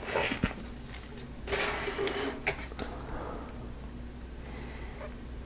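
Lego Technic plastic parts and a Power Functions motor being handled and fitted together: a few scattered small clicks and a brief rustle of plastic.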